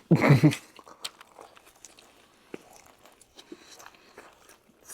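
A person biting into and chewing crispy fried chicken, with scattered crisp crunches. A short louder sound comes at the very start.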